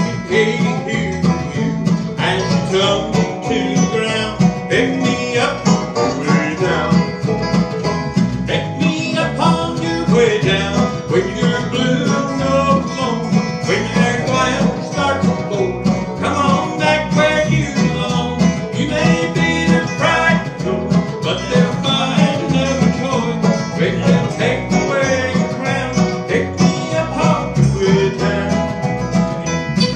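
Bluegrass band playing, with banjo and guitar picking over a steady beat.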